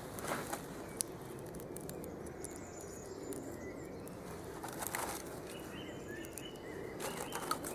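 Woodland ambience with faint bird chirps, and a few short scraping or clicking sounds close by: one near the start, one around the middle and a couple near the end.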